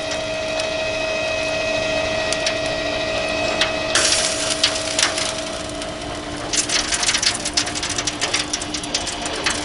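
Rotisserie motor humming steadily as it turns the spit, over the hiss of the lit gas grill. About four seconds in, a crackling sizzle of butter baste on the hot lamb and drippings starts; from about six and a half seconds it becomes dense with sharp pops.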